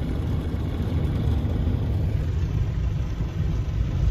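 Steady low rumble of a Mark VII soft-touch automatic car wash, its spinning foam brushes and machinery working along the car, heard from inside the car.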